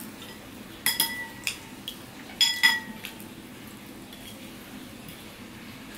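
A steel serving spoon clinking against ceramic dishes: a sharp ringing clink about a second in and a few more around two and a half seconds in. After that only faint background.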